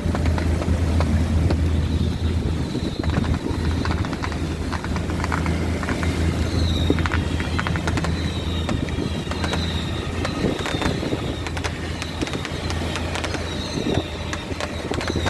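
A boat's engine running steadily with a low, even drone, with scattered short clicks and crackles over it.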